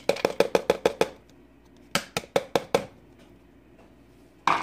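Plastic tub knocked against a stainless steel Instant Pot inner pot to shake out the last frozen corn kernels. It makes a quick run of about nine knocks, then about six more around two seconds in, and one louder knock near the end.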